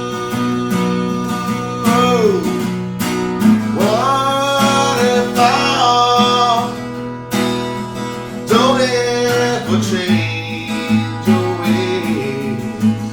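Instrumental break in a song: strummed acoustic guitar keeping a steady rhythm, with a lead melody above it that slides between notes.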